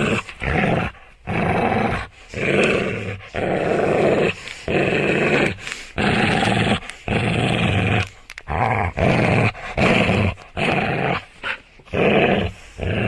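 A dog growling in repeated rough bursts, roughly one a second, each half a second to a second long.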